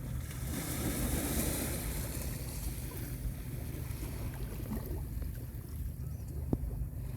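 Calm sea water washing ashore, with a brighter wash of a small wave about a second in, over a steady low rumble of wind on the microphone. A single short knock near the end.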